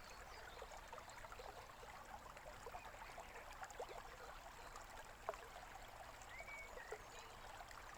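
A small stream babbling and trickling faintly, with an occasional short bird chirp.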